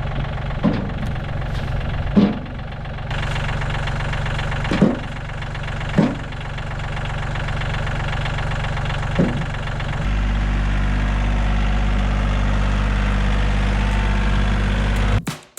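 Diesel engine of heavy equipment running steadily, with a handful of sharp knocks or clanks over it; about two-thirds of the way through the engine note changes and settles into an even drone.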